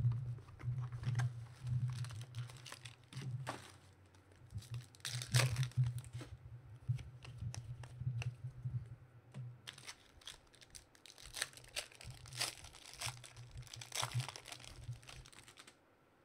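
Trading card pack wrappers and box shrink-wrap being torn open and crinkled by hand, in irregular bursts of crackling and tearing.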